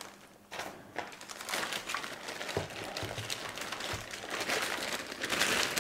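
Thin clear plastic bag crinkling and rustling as hands work an appliance out of it, starting about half a second in and running on as a steady stream of small crackles.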